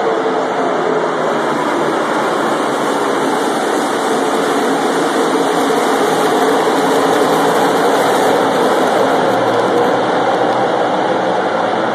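A full field of NASCAR Sprint Cup stock cars racing around the track, their V8 engines blending into one loud, steady engine noise that swells slightly around the middle.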